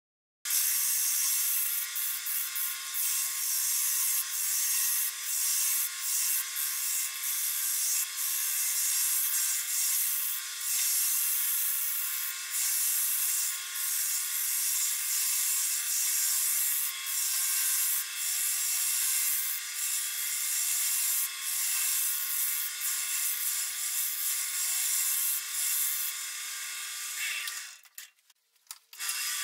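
Wood lathe running while a tool or abrasive is worked against the spinning wood blank: a steady hiss that swells and eases with each pass over a constant motor hum. It stops briefly near the end, then resumes.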